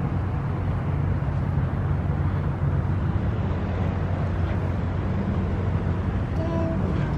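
Steady low rumble and hum of traffic and engines outdoors, with a brief pitched sound near the end.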